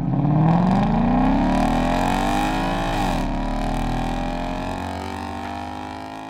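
Ford S550 Mustang's V8 accelerating hard, its revs climbing, dropping briefly about three seconds in as it shifts up, then pulling again while the sound fades away.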